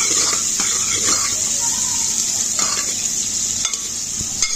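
Sliced onions sizzling in hot oil in a metal pressure cooker as a spoon stirs them, the onions being sautéed until brown. A few clicks of the spoon against the pot come near the end.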